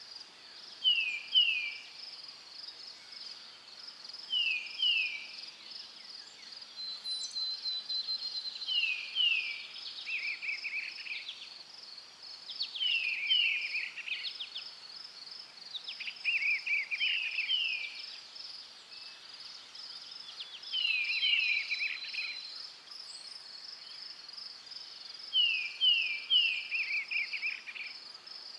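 Forest songbird singing the same short phrase every few seconds, two or three quick falling whistles often followed by a trill. Under it runs a steady, high, pulsing insect chorus.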